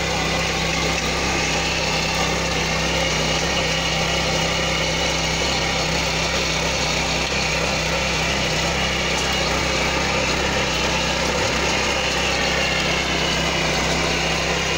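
7 HP power tiller engine running steadily under load while the standard rotary blades churn through grassy soil.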